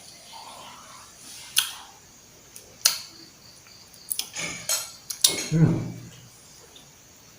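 Cutlery clinking against a plate during a meal: several sharp, separate clinks, with a brief cluster of them near the middle.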